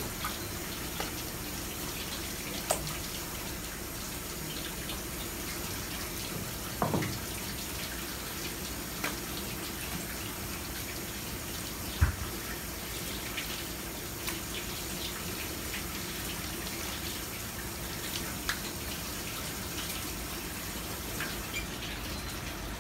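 Tap water running steadily onto a plastic cutting board as a squid is rinsed and rubbed by hand, with a few short knocks, the loudest about twelve seconds in.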